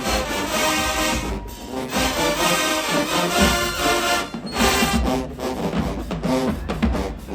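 Marching band playing loudly: brass over a heavy low drum beat. About halfway through, quick, evenly spaced sharp percussion hits come in.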